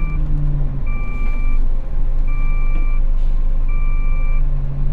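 Large truck's reversing alarm beeping, one beep about every second and a half, each a little under a second long, while the truck backs up. The steady low rumble of its diesel engine runs underneath.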